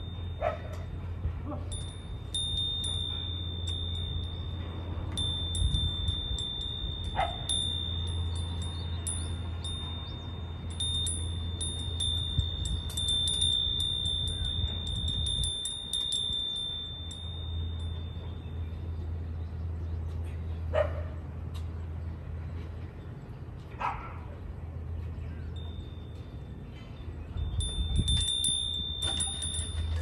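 Outdoor ambience: a steady high-pitched tone cuts in and out, with fast light ticking above it and a steady low rumble underneath. A few short, falling calls come through, about a second in, around seven seconds, and twice past the twenty-second mark.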